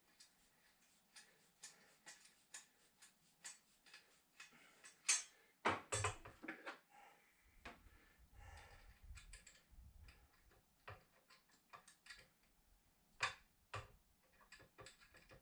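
Irregular light clicks and taps of hand work on a VW T3 headlight and its adjusting screws. A few louder knocks with a dull thud come about five to six seconds in, followed by a low rumble.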